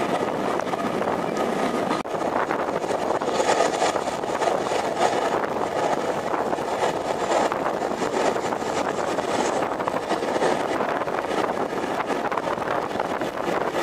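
A railway train running: a steady, noisy rush with no clear engine note.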